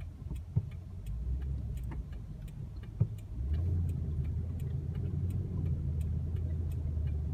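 Car engine and road rumble heard from inside the cabin in slow traffic, growing louder about three and a half seconds in as the car moves off. A light, regular ticking runs underneath, with two soft knocks in the first few seconds.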